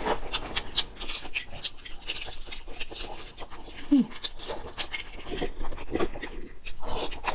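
Eggshell being cracked and peeled by hand from boiled eggs: a run of small, irregular crackles and crinkles. About four seconds in there is a brief low vocal sound that falls in pitch.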